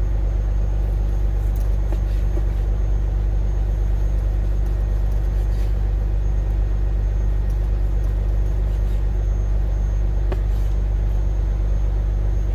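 Steady low rumble of an idling engine, most likely the truck's diesel, unchanging throughout, with a few faint clicks.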